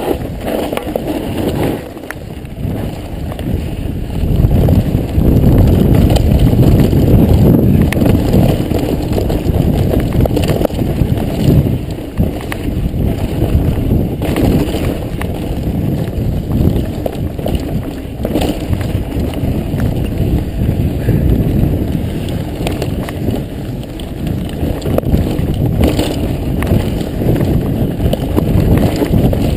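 Mountain bike riding fast over a dirt singletrack, heard from a camera on the rider: wind buffeting the microphone and tyres rolling over dirt, with rattles and knocks from the bike over bumps. It gets louder about four seconds in.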